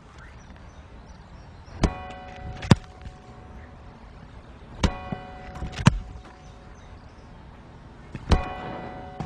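Footballs kicked three times, each kick a sharp thump with a ringing, bell-like clang. The first two are each followed, under a second later, by a sharper crack.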